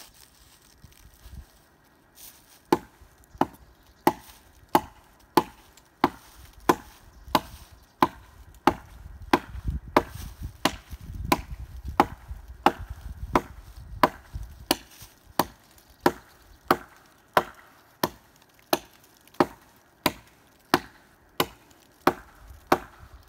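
Hatchet chopping into a fallen tree trunk. Sharp, even strokes land about three every two seconds, starting a couple of seconds in.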